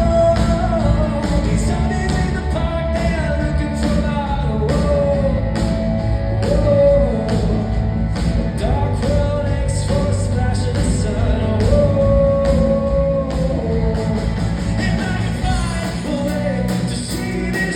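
Live rock song: a male singer carrying the melody over a full band, with drums keeping a steady beat throughout.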